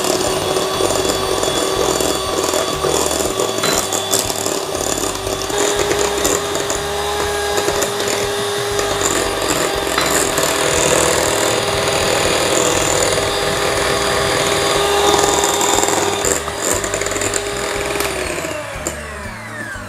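Electric hand mixer running steadily at one speed, its beaters whipping a thick cream-cheese mixture, with occasional clicks. About 18 seconds in the motor is switched off and winds down.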